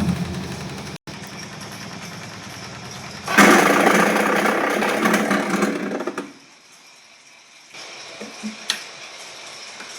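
LG top-load washing machine running with a rattling mechanical noise. It changes abruptly several times and is loudest from about three to six seconds in.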